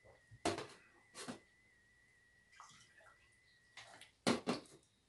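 Wet mouth sounds of eating soft roasted sweet potato and sipping a drink: a few short smacks and slurps, with a faint steady high tone behind them that stops near the end.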